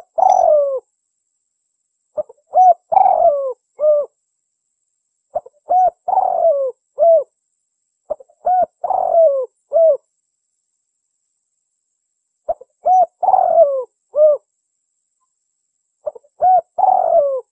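Spotted dove (terkukur) cooing: its low, repeated phrase of a few short coos, a longer drawn-out coo and a final note, sung six times with pauses of a second or more between phrases.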